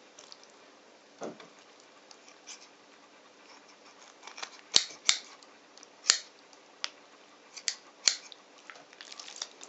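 Kitchen scissors snipping through a raw broiler chicken's rib bones to separate the breast from the back. It is a series of about ten sharp, irregularly spaced snips, the strongest around the middle.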